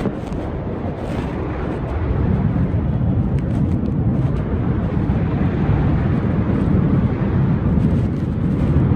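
Wind rushing over the microphone in flight, a steady low rumbling noise that grows louder about two seconds in.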